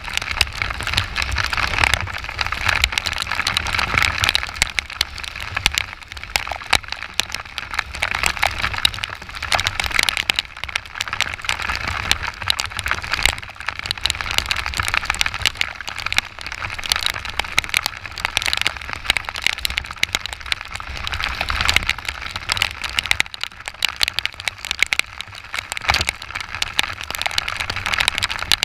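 Heavy rain spattering on a motorcycle-mounted camera while riding, a dense crackle of drops over a steady rush, with a low rumble of wind and the Yamaha XTZ 125's engine beneath.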